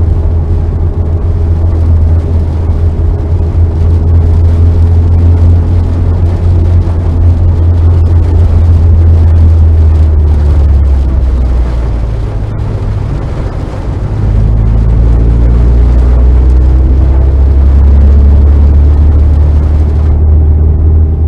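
Car engine running hard on a circuit with a loud, steady low drone. The drone drops back for about two seconds a little past halfway, then rises again as the car gets back on the throttle.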